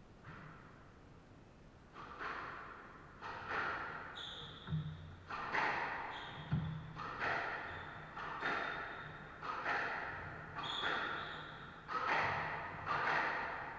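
Squash rally: the ball cracks off rackets and the walls about once a second, each hit echoing round the court, starting about two seconds in. Short high squeaks of shoes on the wooden floor and low thuds of footsteps come between the hits.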